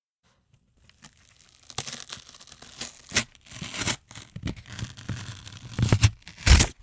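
Material being ripped and shredded: a faint tearing starts about a second in and builds into a run of rough rips with several sharp loud bursts, the loudest just before it cuts off at the end.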